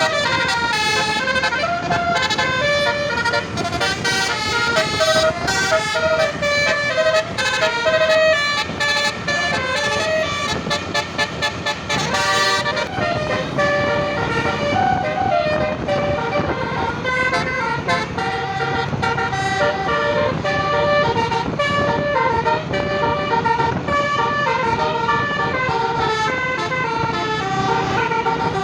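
Bus 'telolet basuri' multi-tone air horn with roof-mounted trumpets playing a tune, stepping quickly from note to note. Roughly a third of the way in it breaks into a run of rapid staccato blasts for a few seconds, then carries on with the melody. A vehicle's low rumble sits underneath.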